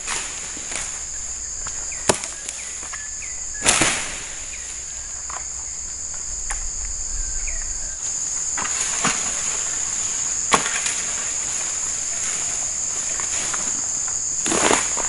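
Insects drone steadily at a high pitch, with a few sharp chops and knocks from a harvester's machete and long-pole harvesting sickle cutting at oil palm. The loudest chops come about four seconds in and near the end, the last trailed by a short rustle.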